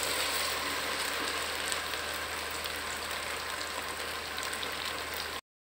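Taro root (arbi) pieces frying in hot oil in a non-stick pan: a steady sizzle and crackle while a spatula stirs them. The sound drops out briefly near the end.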